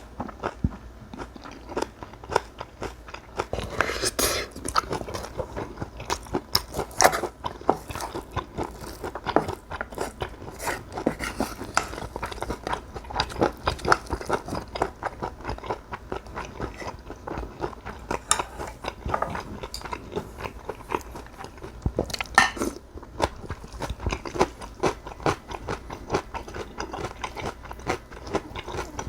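Close-miked eating of cockle bibimbap and kimchi: steady chewing with many small wet clicks and crunches, and an odd louder crunch now and then.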